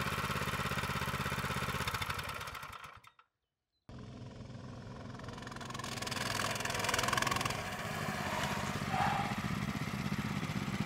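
Small 200cc single-cylinder four-stroke engine of a Scout Safari mini bike running steadily at idle, fading out about three seconds in. After a brief gap, the engines of two such mini bikes run on the road and grow louder as they ride closer.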